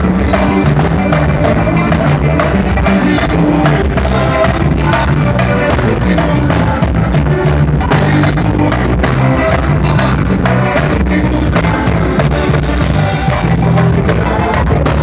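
Loud live band music through the stage PA: a male singer over drums and a steady beat, recorded close to the stage.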